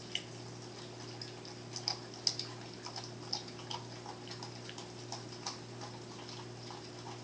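An American Staffordshire Terrier licking and gnawing at a whole raw turkey: irregular clicks and smacks of her tongue and teeth on the carcass, the loudest about two seconds in, over a faint steady hum.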